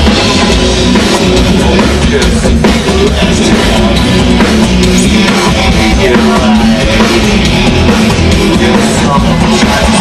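Live rock band playing loud through a PA, with electric guitar, bass and drum kit, heard from within the crowd.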